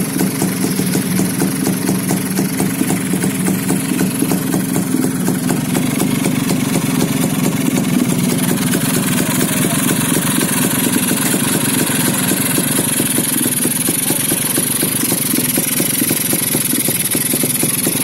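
Honda HD3 motorcycle's single-cylinder engine, rebuilt at standard bore, running steadily at idle with an even exhaust beat.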